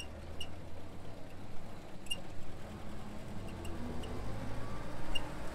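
Willys flatfender Jeep engine running at a low, steady drive, with a few short high chirps now and then.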